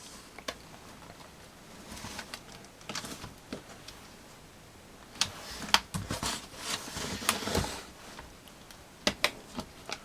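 Plastic screen bezel of an Acer Aspire One D257 netbook being pried off by hand: its snap-in clips pop loose with several sharp clicks, between stretches of plastic rustling and scraping.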